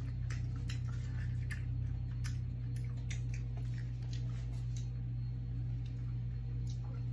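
Soft, irregular mouth clicks of someone chewing a gummy vitamin, a few to a second, over a steady low hum.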